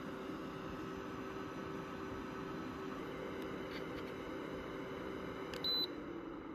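MISSUE J022 HEPA air purifier's fan running steadily on its fast setting, a quiet hum over a rush of air. Near the end a short electronic beep sounds as the remote switches its speed, and the fan's hum drops slightly as it slows toward sleep mode.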